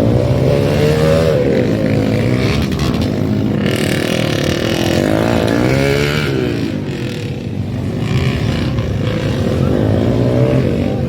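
Motocross dirt bike engines revving hard, their pitch rising and falling again and again as several bikes run at once.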